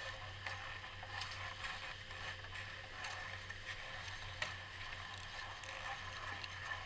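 Quiet outdoor ambience: a faint steady low hum and a thin steady tone, with scattered light clicks and crunches, one a little sharper about four and a half seconds in.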